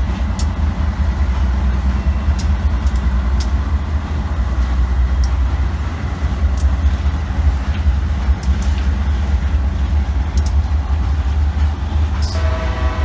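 Freight train passing close by: Kansas City Southern diesel locomotives rumbling past, followed by open-top hopper cars rolling by with sharp wheel clicks over the rail. A train horn sounds briefly near the end.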